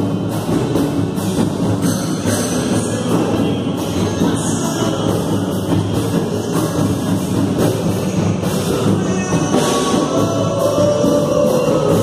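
Small live band playing a gospel song in a pagode style: strummed acoustic guitars over a steady hand-drum groove from a large tantã and a surdo, with tambourine, dense and loud in a reverberant hall.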